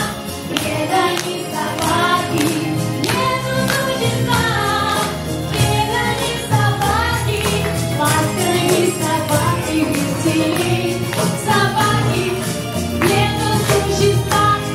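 A live song: a woman singing through a microphone, accompanied by piano, a hand drum and jingling shakers, with a steady beat.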